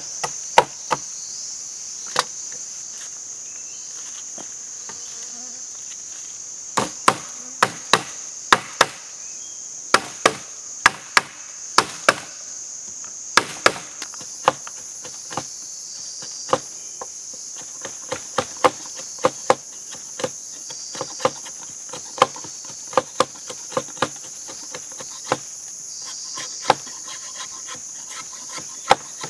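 A machete chopping and notching a thin bamboo stick: sharp, irregular knocks, often several a second, with short pauses between runs. A steady high drone of insects runs underneath.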